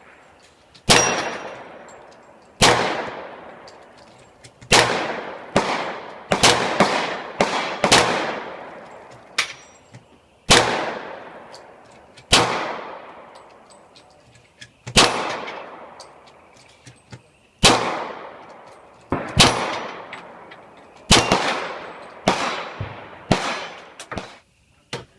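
A string of about twenty pistol shots fired at an uneven pace, some in quick doubles and runs, each followed by a long echoing decay.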